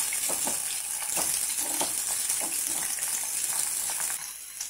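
Batter-coated prawns deep-frying in hot oil: a steady sizzling hiss, with a spatula stirring through the pan in short strokes. The sizzle drops away a little near the end.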